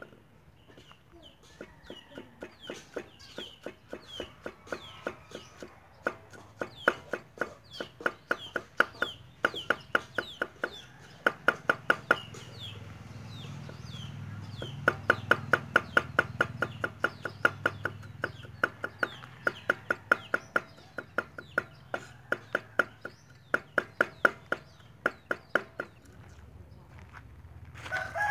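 Cleaver chopping peeled garlic on a thick wooden chopping block: quick runs of sharp knocks, about five a second, with short pauses, loudest in the middle. Chicks cheep with short, high, falling chirps through the first half.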